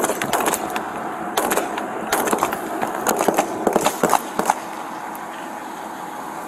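Body-worn camera knocking and rubbing against the officer's gear and the car as he scrambles to cover: a quick irregular run of sharp knocks and clatter for about four seconds, then a steady hum of an idling vehicle.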